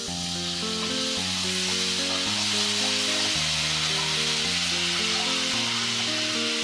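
A little water sizzling up hard in a pan of hot oil tempered with mustard seeds and spices, stirred with a wooden spatula. Background music with sustained notes plays under the sizzle.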